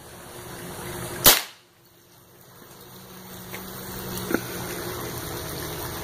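A single sharp shot from a revolver firing a wax bullet into a geotextile fabric backstop, followed about three seconds later by a faint click.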